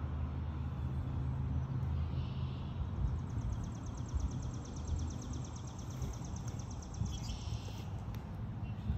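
Outdoor ambience: a steady low rumble, with a high, rapid trill lasting a few seconds in the middle and a couple of short high chirps.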